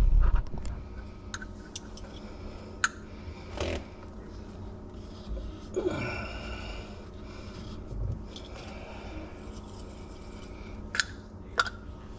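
Handling sounds of gluing PVC drain pipe under a sink: scattered light clicks and taps of the cement can, dauber and fittings, and a scraping swipe about six seconds in as cement is swabbed on.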